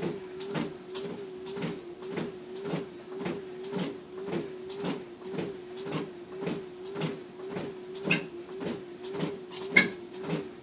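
Treadmill running under a walker: a steady motor hum whose pitch dips with each footfall, and footsteps thudding on the belt about twice a second.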